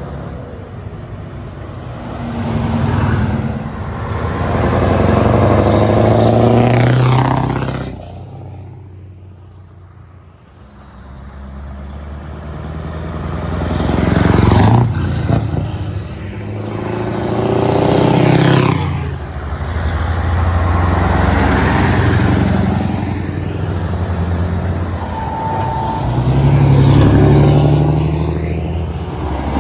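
Older heavy trucks, among them a Scania 144L 460 tractor unit, driving past one after another: each diesel engine swells as it comes by and fades away with a falling pitch, several times over, with a lull about a third of the way through. A short steady tone sounds near the end.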